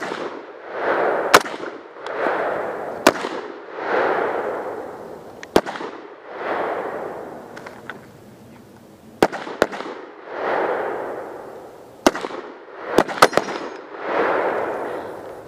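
M1 Garand rifle fire in .30-06: a string of single sharp shots at uneven intervals, two coming close together near the middle and two more near the end, with a wash of noise swelling and fading between shots.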